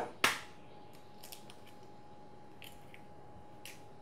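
An egg knocked once, sharply, against the rim of a glass mixing bowl to crack it, followed by a few faint small clicks as the shell is handled.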